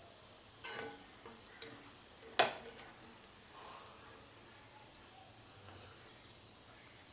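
Strips of potato peel sizzling quietly in hot deep-frying oil while they are scooped out, with a few metal clinks of a utensil against the pan, the sharpest about two and a half seconds in.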